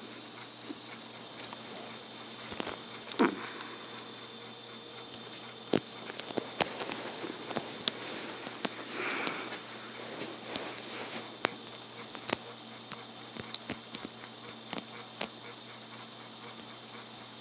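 A kitten pouncing and scrabbling on a quilted bedcover: scattered light taps and thumps, the loudest about three seconds in, and a brief rustle a little past the middle, over a faint steady hum.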